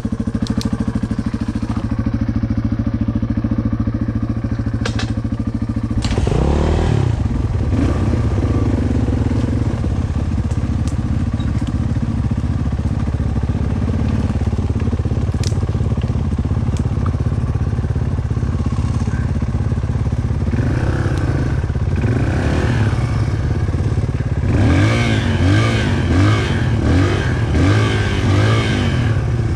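Dirt bike engine idling steadily, then revved hard about six seconds in and running under changing throttle. Near the end comes a series of quick throttle blips.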